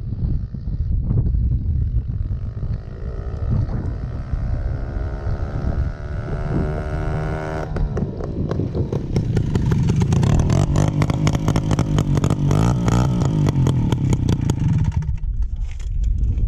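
Two-stroke moped engine with part of its exhaust removed, running open and loud. Its pitch climbs as it revs for the first several seconds, then about 8 s in it breaks into a loud, rapid rattling run of exhaust pulses that eases off near the end.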